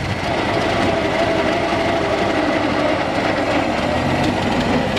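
Engine of a 1924 Ford Model TT truck, a four-cylinder side-valve, running steadily as the truck pulls away. A thin steady tone sits under the engine noise.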